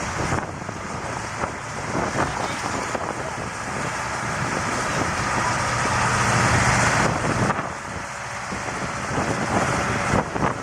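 An off-road vehicle's engine running and growing louder, peaking about six to seven seconds in and then dropping away sharply, with wind buffeting the microphone.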